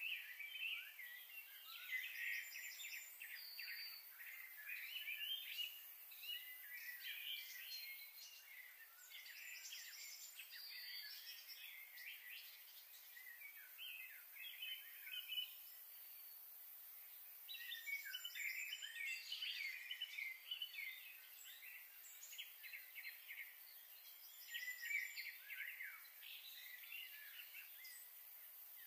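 Small birds chirping and twittering in bouts, with quick high notes and a few short whistles, over a faint steady hiss.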